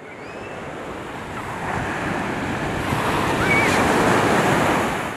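Surf breaking on a gravel beach, with wind buffeting the microphone. The wash swells louder toward the end and cuts off suddenly. A couple of faint high chirps sound over it.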